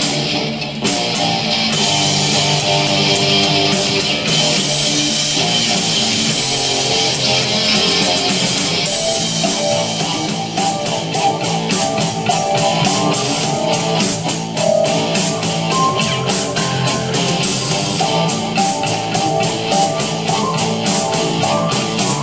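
Rock music with guitar playing from a B&O BeoPlay A2 portable Bluetooth speaker, with a steady drum beat coming through strongly from about nine seconds in.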